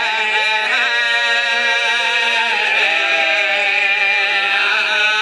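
Several men's voices singing a drawn-out mourning lament together into a microphone, with long held notes that waver and bend in pitch.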